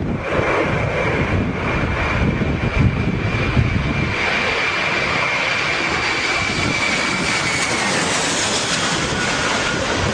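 Jet aircraft engines running: a continuous rushing roar with a steady high whine, and an uneven low rumble in the first few seconds.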